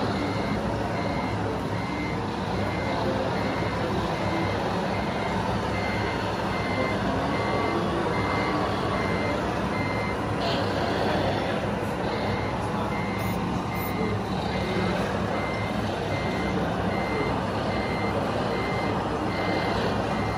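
Scale RC truck's sound module playing a reversing beeper: short high beeps about one and a half a second, pausing briefly around halfway, over a steady low engine drone.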